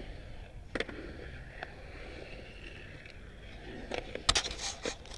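Skateboard wheels rolling on a concrete skate bowl, with a few sharp clacks. The loudest clack comes a little past four seconds in.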